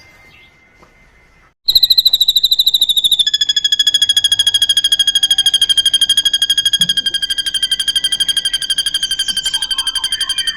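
Drongo (srigunting) singing a long, fast-pulsing high trill in imitation of a cililin's song. It comes in about two seconds in after a near-silent pause, dips a little in pitch at first, then holds level for about ten seconds.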